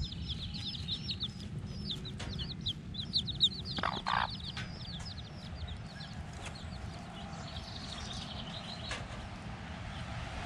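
Baby chicks peeping: a busy stream of short, high peeps that thins out near the end. A mother hen gives a louder, lower cluck about four seconds in.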